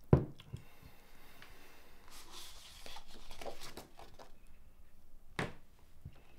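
Handling sounds: a sharp knock at the start, a couple of seconds of rustling, and a second, softer knock a little over five seconds in.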